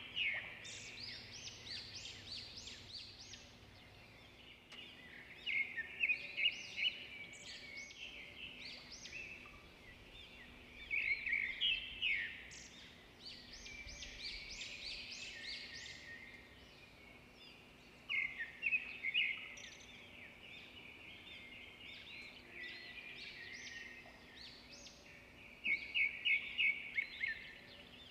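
Small birds chirping, with quick runs of high notes coming in bursts every six or seven seconds.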